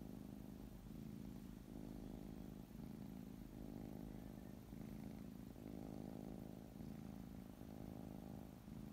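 Tabby cat purring steadily, close to the microphone. The purr swells and dips in even phases about a second long.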